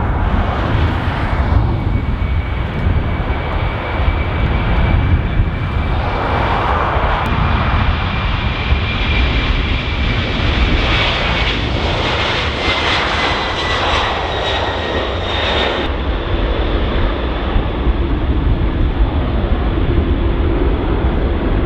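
Boeing 767-300ER jet engines at takeoff power as the airliner rolls and climbs past, a thick steady rumble with a high whine that slowly falls in pitch. The upper hiss drops away suddenly about two-thirds of the way through.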